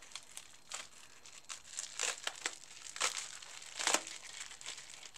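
Plastic bubble wrap crinkling and rustling as it is unwrapped by hand, with a few louder crackles about two, three and four seconds in.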